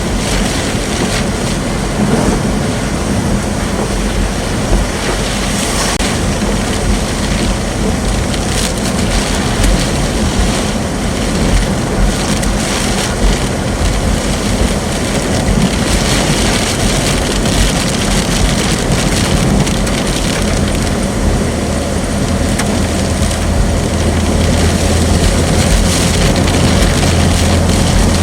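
Wind and heavy rain of a rain-wrapped tornado's circulation buffeting a storm-chase vehicle, in irregular gusts over a steady low vehicle rumble. The rumble grows louder about two-thirds of the way through.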